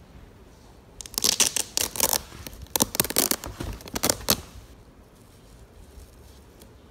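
Velcro (hook-and-loop) straps on a Cross Trekker shoe being pulled open, several crackling rips in a row over about three seconds, starting about a second in.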